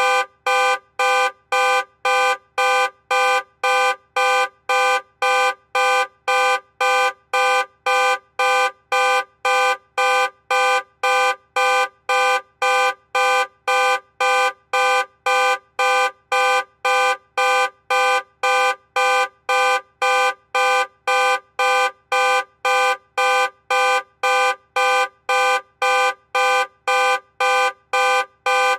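Car alarm sounding a horn-like tone in loud, evenly repeated on-off blasts, about two a second, at one unchanging pitch.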